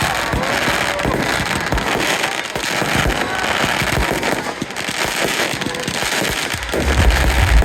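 Aerial fireworks going off in quick succession: many sharp bangs over a dense, steady crackle.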